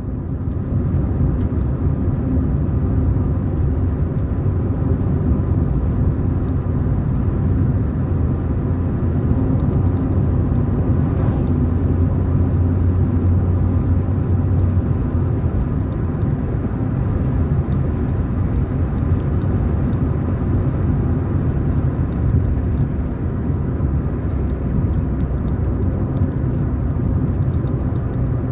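Steady low rumble of a car being driven along a road, engine and tyre noise.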